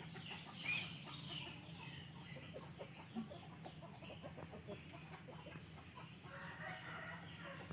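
Chickens clucking faintly, with light rustling of chili plant leaves as the pods are picked by hand.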